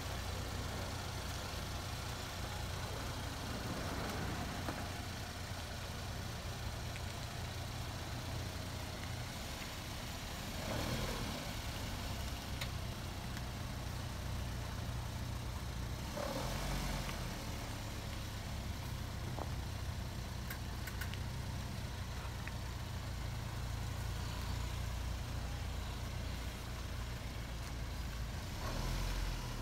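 Chevrolet Equinox SUV's engine running at low speed as the car manoeuvres and pulls away slowly, a steady low hum.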